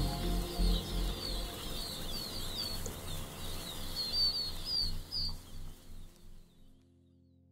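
A flock of young pheasants peeping, many short high chirps overlapping, over low background music. The peeping fades out about six seconds in.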